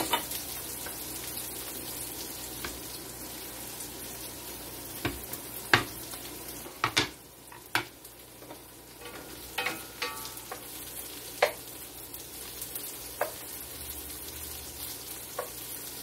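Sliced onions frying in olive oil in a hard-anodized ceramic skillet, a steady sizzling hiss at the start of sautéing them down to caramelize. Sharp clicks and knocks of a wooden spoon and kitchen utensils come now and then from about a third of the way in.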